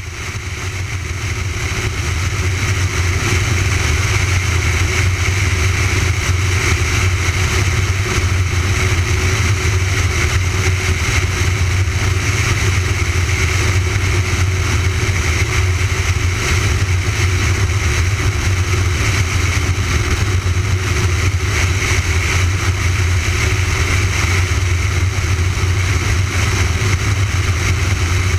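The Griffon Lionheart's radial engine drones steadily in cruise flight, with airflow rushing over an externally mounted camera. The sound fades up over the first second or two, then holds level.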